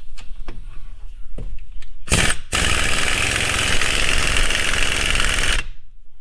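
A few light clicks and knocks, then a power tool starts about two seconds in and runs steadily for about three and a half seconds, driving in a bolt of a wheel bearing hub assembly, before cutting off suddenly.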